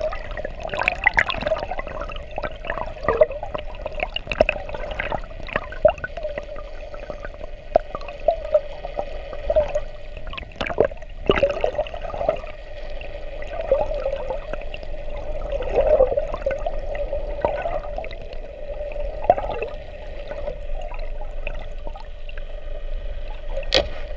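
Water heard underwater: a gurgling, rushing wash with many irregular clicks and crackles, over a steady mid-pitched hum.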